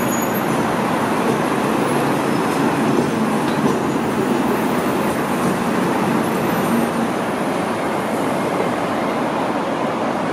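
Steady heavy city street traffic: double-decker buses and cars passing close by, with a continuous rumble of engines and tyres.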